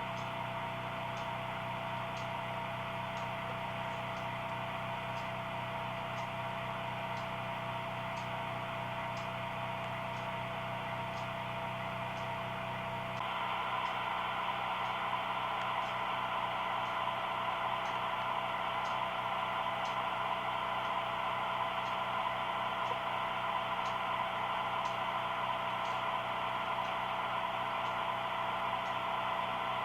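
HO-scale model train running: a steady mechanical hum with faint, regular ticking about one and a half times a second. The hum changes tone and gets a little louder about halfway through.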